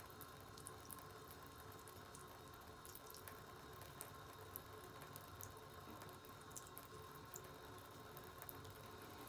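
Faint water dripping in a bathtub, with small irregular ticks scattered throughout over a faint steady hum.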